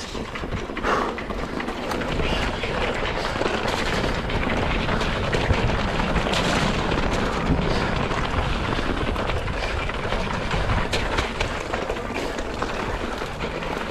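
Mountain bike being ridden over rough trail: a steady rush of tyre and wind noise, broken by frequent clattering knocks as the bike rattles over the bumps.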